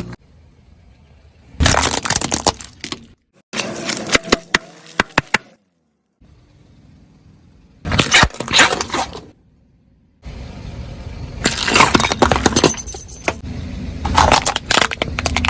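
A car tyre crushing soft-drink bottles: bursts of crunching and cracking with sharp snaps, in four separate takes broken by abrupt cuts, the last and longest starting about ten seconds in.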